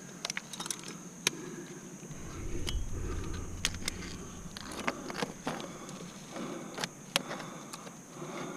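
Metal climbing gear clinking: carabiners and a spring-loaded camming device knocking together on a harness rack, with many scattered sharp clicks as a cam is taken off and placed in a rock crack. A low rumble comes in about two seconds in and lasts about a second and a half.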